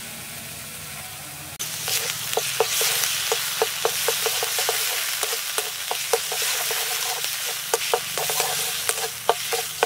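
Masala paste of onion, ginger-garlic, chilli and cashew sizzling in mustard oil in a metal kadai, starting about a second and a half in, while a spatula stirs it, knocking and scraping against the pan a few times a second. The masala is being fried until the oil begins to separate from it.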